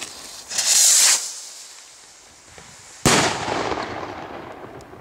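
An aerial firework goes up with a loud hiss about half a second in. About two seconds later it bursts with one sharp bang that echoes away.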